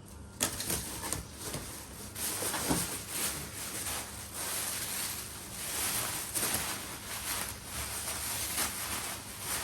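Rustling and handling noises, with scattered light clicks and knocks.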